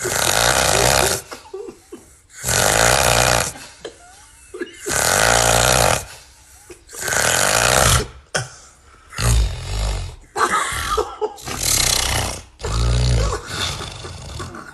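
A man snoring very loudly: long rasping snores roughly every two and a half seconds, then from about nine seconds in, shorter, choppier snorts with a deep grunting tone.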